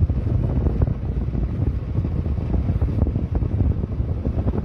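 Wind buffeting the microphone of a motorcycle riding along at about 30 km/h: a loud, low, uneven fluttering noise, with the sound of the moving bike underneath.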